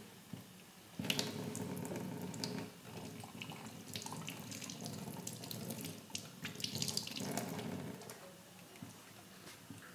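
Water running and splashing for about seven seconds, starting abruptly about a second in and dying away near the end.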